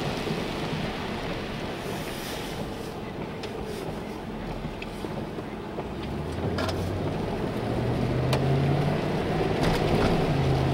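Car cabin road noise while driving: a steady low rumble, with the engine's low hum growing louder about six seconds in, and a few faint clicks.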